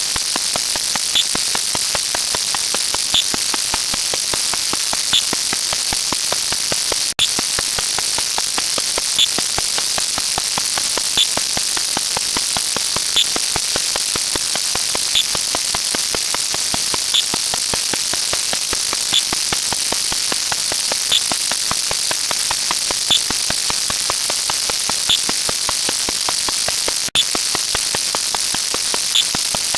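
Steady hissing, crackling static noise with a short high blip about every two seconds. The noise cuts out for an instant twice, about twenty seconds apart.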